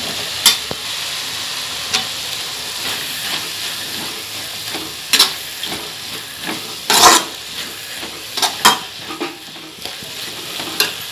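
Chopped vegetables and sweet corn sizzling in a metal kadai while a spatula stirs them, with a steady frying hiss and sharp scrapes and knocks of the spatula against the pan, the loudest about seven seconds in.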